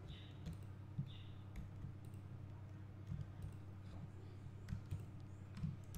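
Faint, scattered clicks of a computer mouse, a few over several seconds, over a low steady hum.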